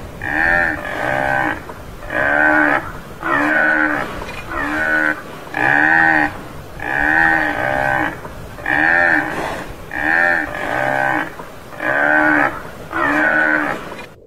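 Tamaraw (Mindoro dwarf buffalo) calling: about a dozen short calls, roughly one a second, each rising and then falling in pitch.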